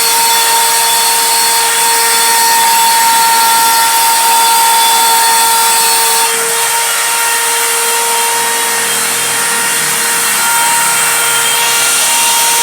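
CNC router spindle whining at a steady high pitch as its bit cuts through 18 mm MDF, with a hissing cutting noise over it. The cutting noise eases a little about six seconds in and comes back stronger near the end.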